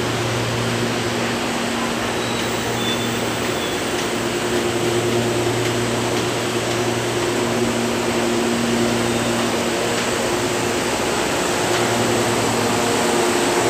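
Steady hum and whir of a stationary electric commuter train's air-conditioning and auxiliary equipment, with a few steady low tones that fade in and out.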